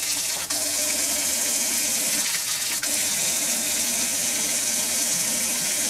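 Water running steadily from the spout of a stainless steel bath-shower mixer tap, its diverter rod pushed down to send the flow to the spout rather than the shower head.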